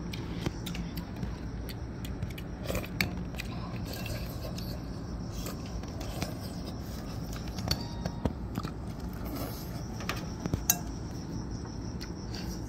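Eating sounds: spoons clinking and scraping on plates and corn on the cob being bitten and chewed, scattered short clicks over a steady low hum.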